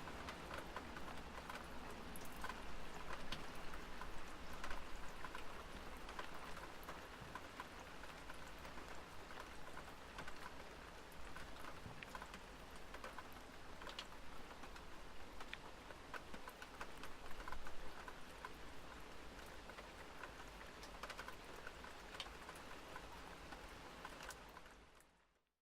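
Steady medium-light rain with individual drops pattering and ticking on hard surfaces. It fades out near the end.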